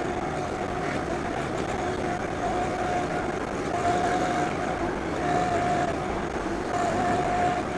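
John Deere 2025R compact tractor's three-cylinder diesel running steadily while it works dirt, with a whine that comes and goes about every second and a half.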